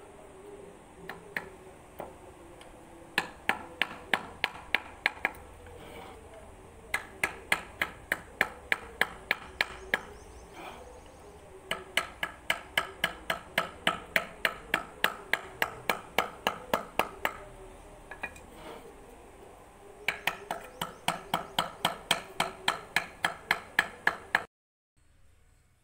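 Wooden mallet tapping a woodcarving chisel into a wooden piece, in runs of quick, even strikes about three a second with short pauses between. The tapping stops abruptly near the end.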